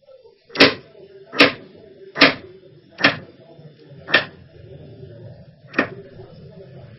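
Chef's knife chopping through potato and striking a plastic cutting board: six sharp knocks, about one a second, with a longer gap before the last.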